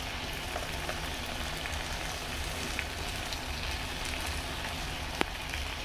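Butternut squash, tomato and pepper sauce sizzling steadily in a pan while cooked rice is spooned onto it, with a single sharp click about five seconds in.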